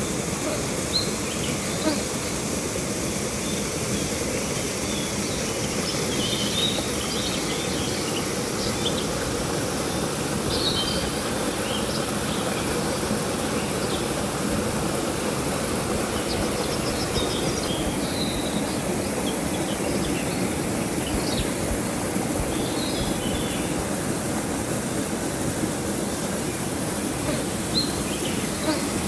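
River water flowing in a steady, even rush, with short high chirps scattered through it.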